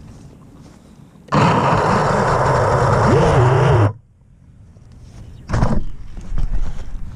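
FPV quadcopter's motors and propellers spinning up hard with the quad down in tall grass. The sound starts and cuts off abruptly after about two and a half seconds, and a shorter burst follows about a second and a half later.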